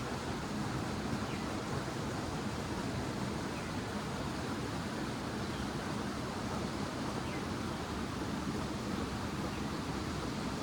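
Flowing river water rushing steadily, an even unbroken noise.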